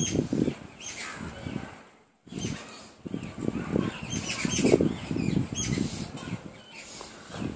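Close-miked eating by hand: fingers squishing and mixing rice with curry on a metal plate, and chewing, in repeated short bursts with a brief break about two seconds in. Birds chirp faintly in the background.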